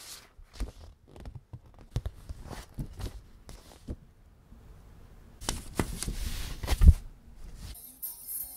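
Close-up handling of a vinyl record album: a paper inner sleeve rustling and sliding against the cardboard jacket, with small taps and clicks. A louder rustle comes about five and a half seconds in and ends in a sharp thump, and music starts just before the end.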